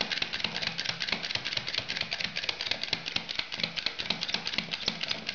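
Lock pick gun clicking rapidly against the pin tumblers of a Kwikset house lock, about ten sharp clicks a second, as the pins are bumped toward opening.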